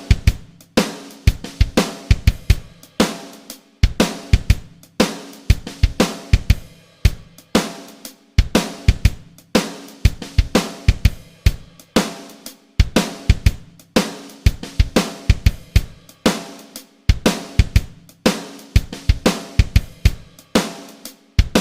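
Music: a drum-kit beat of kick drum, snare, hi-hat and cymbal hits in a steady rhythm whose pattern repeats about every two seconds, with a few sustained notes underneath.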